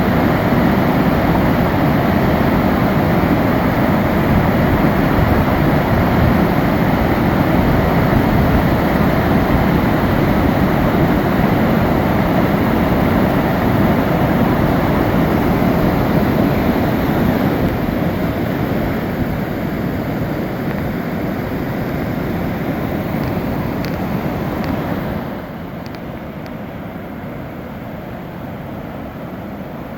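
Waterfall on a river: steady rushing of falling water. It eases a little after about two-thirds of the way in, then drops suddenly to a lower level near the end.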